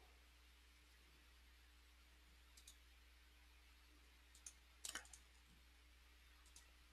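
Computer mouse clicking over near silence: a few faint single clicks, with a louder quick cluster of clicks about five seconds in.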